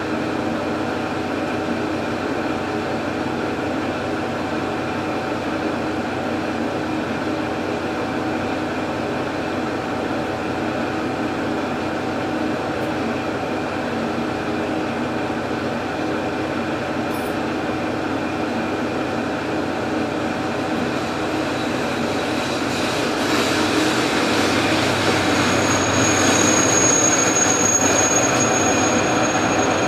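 Sanriku Railway diesel railcar standing at a station with its engine idling, a steady hum. About three-quarters of the way in, an oncoming train is heard approaching and the noise swells. A high, steady squeal joins near the end.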